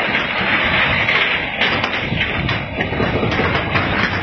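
Loud, continuous rushing noise with many knocks and thuds from a phone being shaken and jostled while the ground moves in an earthquake.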